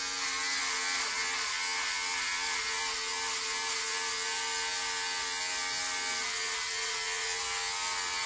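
Handheld electric hair trimmer buzzing steadily as it is run over the scalp to shave the head.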